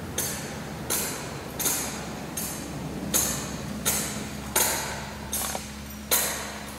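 Metal thurible being swung to incense the offerings, its chains clinking against the censer in a steady rhythm, about one clink every three-quarters of a second, each ringing briefly. A faint steady low hum lies beneath.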